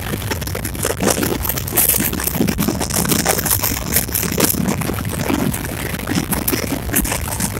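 Indian Railways express passenger coach running at speed, heard from its own open door or window. A steady rumble of wheels on track is broken by many irregular knocks and rattles, with wind rushing past the microphone.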